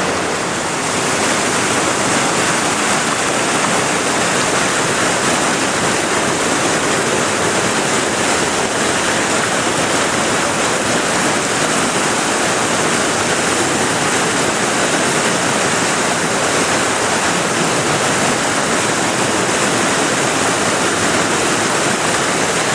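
Whitewater rapids rushing loudly and steadily.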